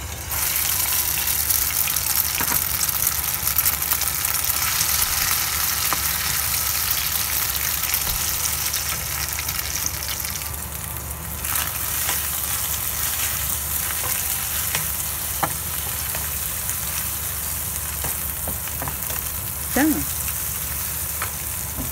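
Chopped toon sprouts beaten with egg hitting hot oil in a nonstick frying pan: a loud sizzle that starts suddenly and keeps frying. A wooden spatula stirs and scrapes through the mixture with light knocks.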